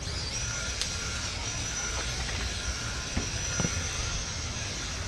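Small electric Traxxas 1/16-scale RC car driving on concrete, heard from a camera mounted on the car. A steady high motor whine sits over tyre and wind rumble, with a few small knocks.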